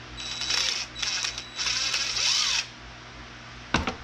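Cordless DeWalt drill/driver running in three short bursts with a steady high motor whine, the last about a second long, as it drives a screw into a wooden camera mount. A single sharp knock near the end.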